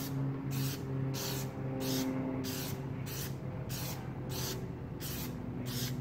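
Plasti Dip rubber-coating aerosol can spraying the first coat, its hiss coming in quick pulses about two to three a second. A low steady hum runs underneath.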